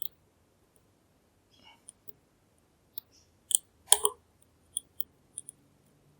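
Lock-picking tools in a NEMEF NF4 dimple lock: a flag pick probing the pins under tension, giving scattered sharp metallic clicks and ticks, with the loudest cluster about four seconds in.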